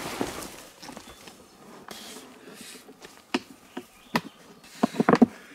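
Plastic sled loaded with a dead black bear dragged through dense brush: leaves and stems rustling and scraping against it, with a few sharp cracks and knocks in the second half and a quick cluster of them near the end.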